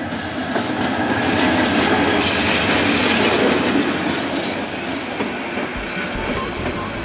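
Bangladesh Railway diesel-electric locomotive passing close by at slow speed, hauling passenger coaches. The engine noise swells to its loudest as the locomotive goes past, then eases as the coaches follow, their wheels clattering over the rail joints.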